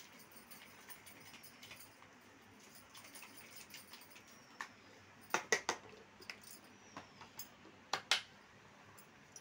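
A few light clicks and taps of small spice containers and steel bowls being handled while spices are sprinkled in, in a close cluster about five seconds in and again about eight seconds in.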